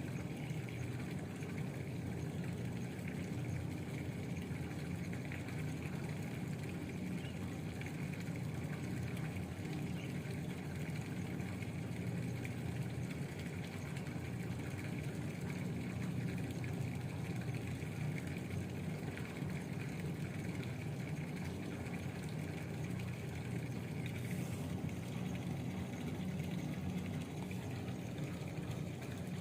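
Steady rush of running water with a low rumble, unchanging throughout.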